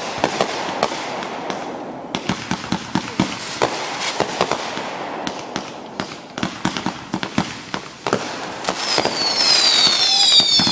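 Fireworks going off in rapid succession: many sharp pops and crackling bangs, with several high whistles gliding down in pitch at once starting near the end.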